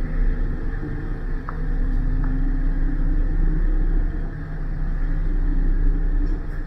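Shuttle bus engine running and road noise heard from inside the cabin while driving: a steady low rumble with an engine drone that shifts slightly in pitch.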